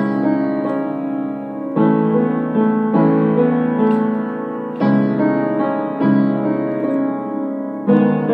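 Piano playing an instrumental passage between sung lines: sustained chords, each struck afresh about once a second.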